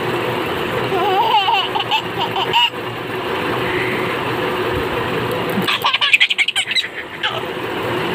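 A baby vocalizing in a wavering high voice about a second in, then laughing in quick bursts around six seconds in, over a steady background hum.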